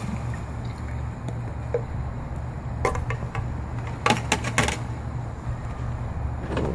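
A steady low rumble, with a few faint clicks about three seconds in and a short run of sharp knocks a second later, light knocks from handling things on the outdoor cooking table.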